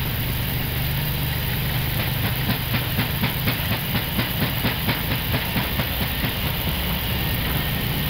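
Airbus A321neo flight deck on the takeoff roll: steady engine and rushing noise at takeoff power with a low hum. From about two seconds in, a run of light, evenly spaced thumps comes faster and faster as the wheels roll over the runway at gathering speed.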